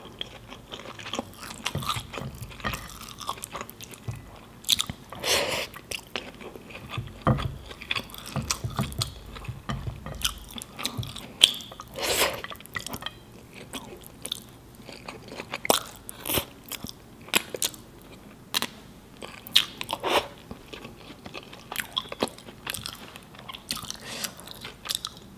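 Close-miked chewing of handfuls of mutton biryani, with many short, irregular crackles and wet mouth clicks.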